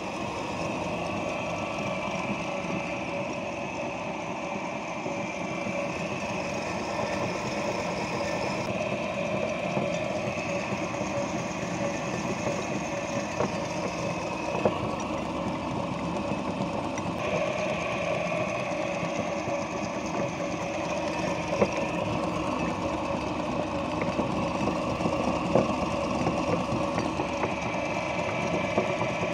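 Cast-iron meat grinder with a large flywheel running steadily, a continuous mechanical whir of the turning auger, with a few sharp clicks.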